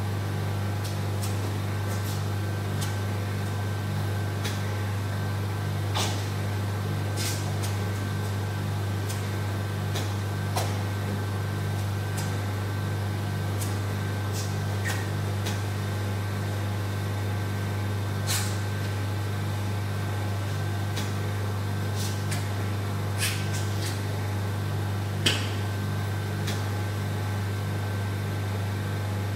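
Vacuum RF roller body-contouring machine (Velashape-type) running during treatment: a steady low hum with a regular throb under it, from its suction working through the roller handpiece. Scattered light clicks come as the handpiece is worked over the skin.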